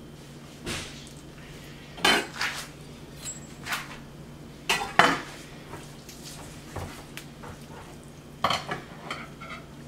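Knife and hands working over a wooden cutting board while a stuffed whole snapper is tied up: scattered short clinks and knocks, the loudest about two and five seconds in.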